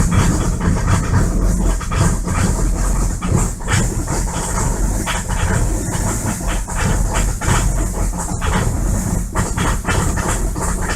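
Five-cylinder diesel engine running steadily just after a cold start at about minus 33, with an uneven clatter over a low hum.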